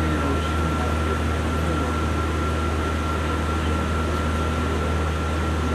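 Steady mechanical hum and whir with a constant high-pitched whine, unchanging throughout.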